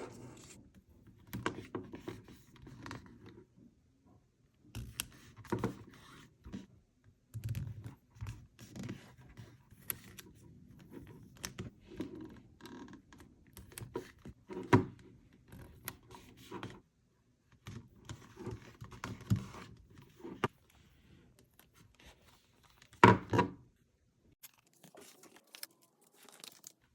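Hands handling toys and packaging: scattered scrapes, rustles and light clicks, with a louder knock a few seconds before the end.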